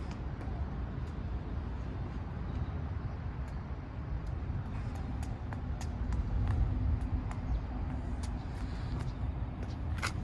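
Low rumble of a road vehicle passing, swelling about six seconds in, with a few scattered light clicks. No crossing bell is ringing.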